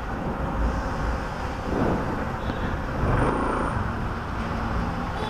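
Honda ADV150 scooter's single-cylinder engine running at low speed as the bike creeps forward. The engine sounds under a steady low rumble of wind and street noise.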